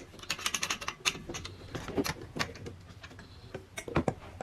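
Irregular clicking and light rattling of small hard parts being handled, dense at first and thinning out, with a couple of firmer knocks near the end.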